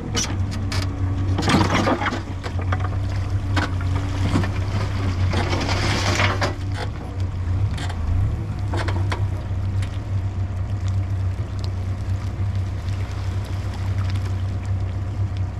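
CAT 420F backhoe's diesel engine running steadily under work, with a scatter of knocks and scraping noises in the first half as the machine works debris out of the pipe.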